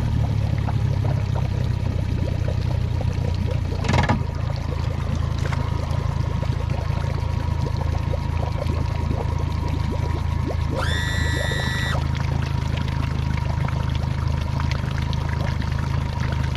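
Boat motor running steadily underway, with water trickling and pouring around the hull. A sharp knock about four seconds in, and a short high tone around the middle.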